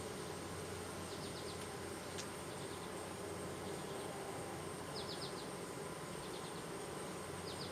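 A steady hum of many honeybees buzzing around an open, overpacked beehive.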